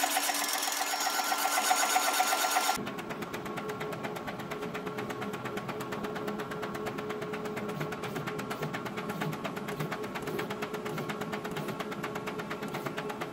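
DTF textile film printer running. For the first three seconds the print-head carriage shuttles with a loud, fast, even clatter; then it drops suddenly to the quieter fast chatter and steady hum of the machine's powder-shaker and curing-oven section feeding out the printed film.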